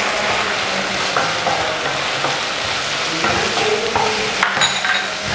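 Wooden spatula stirring chopped capsicum and onions in a hot oiled frying pan: a steady sizzle of frying with short scrapes of the spatula across the pan, the sharpest a little before the end.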